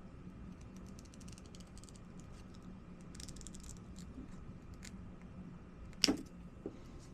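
Light, scattered clicking and ticking of hands working a flat ribbon cable and small tools at a bench, with a sharper knock about six seconds in.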